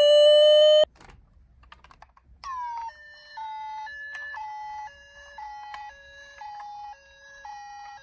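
A toy ambulance's electronic siren holds one slightly rising tone, then cuts off abruptly about a second in. After a few faint handling clicks, a die-cast toy ambulance's electronic siren starts, stepping between a high and a low note about twice a second.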